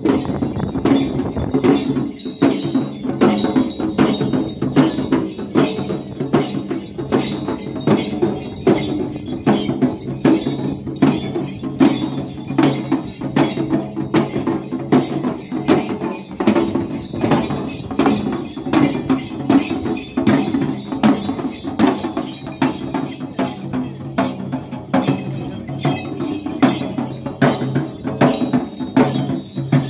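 Jhankri shamans' dhyangro frame drums, beaten with curved sticks in a steady, quick dance rhythm, several strokes a second, with a metallic ringing over the beat.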